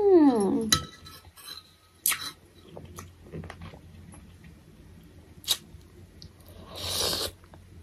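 A woman's short wavering vocal sound in the first second, then soft mouth clicks and chewing, and about seven seconds in a brief slurping suck on a sour lemon wedge.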